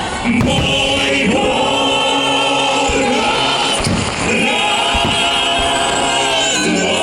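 Music with a choir singing long held chords, with a few low thuds beneath.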